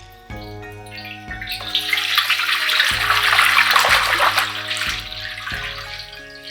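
Water running or being poured in a steady rush that swells for about two seconds and then fades, over background music.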